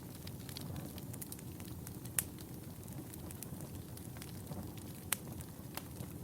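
Wood fire burning in a fireplace: a steady low rumble with scattered crackles and a few sharp pops, the loudest about two seconds in and again about five seconds in.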